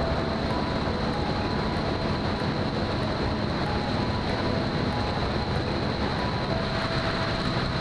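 Lake Buccaneer amphibian's pusher-mounted four-cylinder engine running steadily under a heavy rush of wind and water noise, with a steady high whine, as the flying boat skims the water. The sound is picked up by a wing-mounted camera exposed to the airflow.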